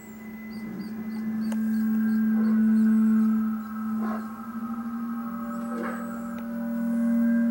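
A wildlife documentary's soundtrack playing through a television speaker: a sustained low musical drone with fainter steady tones above it. It swells over the first few seconds, dips briefly around the middle, then holds.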